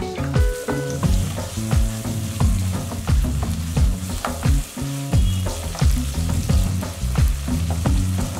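Chopped tomatoes with onion paste and ginger-garlic paste sizzling in hot mustard oil in a nonstick kadai, stirred with a spatula scraping across the pan. Background music plays underneath.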